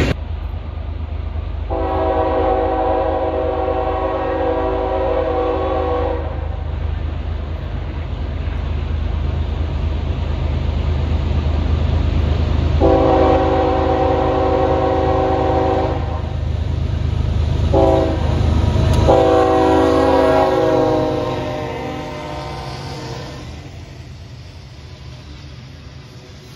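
Locomotive air horn sounding a multi-note chord in the long, long, short, long pattern of a grade-crossing signal, over the low rumble of the passing train. The rumble drops off after the last blast and the sound fades away.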